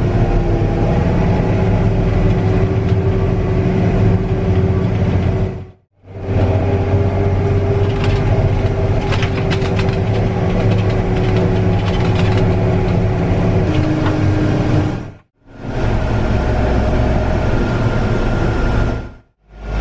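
Engines of heavy harvest machinery running steadily, in three clips joined by short fades.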